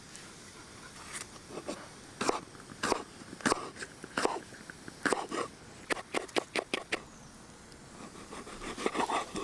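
Irregular sharp clicks and scrapes, about one a second, with a quicker cluster near the end.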